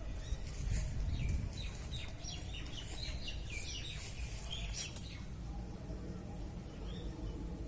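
Birds chirping in a quick run of short, high calls for a few seconds, over a steady low rumble.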